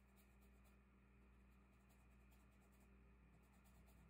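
Near silence: faint scratchy strokes of a paintbrush on a canvas board, coming in short spells over a low steady hum.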